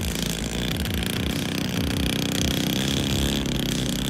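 Engine of a 40% scale L4 Grasshopper radio-controlled model plane running steadily as the plane taxis on the ground.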